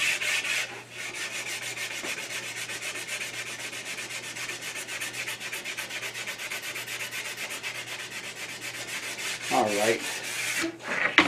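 Sandpaper rubbed by hand along the edge of a hardwood board in quick, even back-and-forth strokes.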